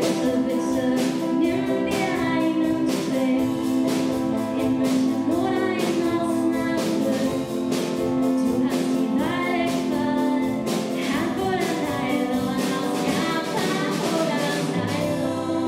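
A song playing, with a steady beat under sustained instrument notes and a singing voice.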